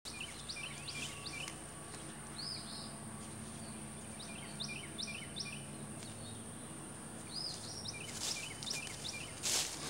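Songbirds chirping in quick repeated phrases of short notes, over a steady high insect-like drone and a low hum. Near the end come a couple of louder noisy strokes.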